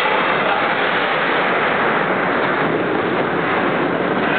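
Steady, echoing din of an indoor ice rink during a hockey game, with skates working the ice under the general hall noise.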